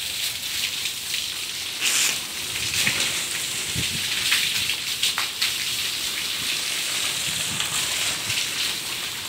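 Water pouring down in a steady stream and splashing onto a wet concrete floor, a continuous hiss with small scattered drips and splashes. It is the run-off from soaking the roof slab with water for curing.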